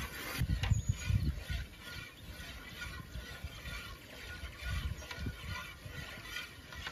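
A metal ladle stirring and scraping in an aluminium pot of milk, with low rumbles about a second in and again about five seconds in.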